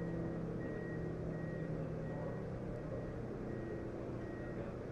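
A vehicle's engine running with a steady low hum, under a faint high electronic beep that repeats about every 0.8 seconds.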